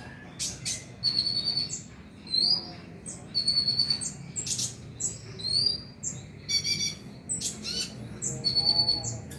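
Kolibri ninja (konin), a sunbird, singing: a stream of high, thin chirps and short buzzy trills, repeated about once a second over a low background hum.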